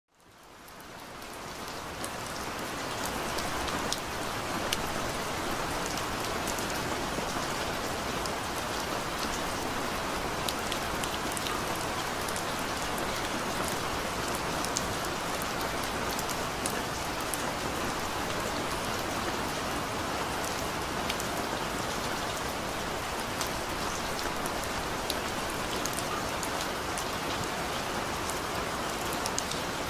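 Steady rain falling, with many individual drops striking close by. It fades in from silence over the first few seconds.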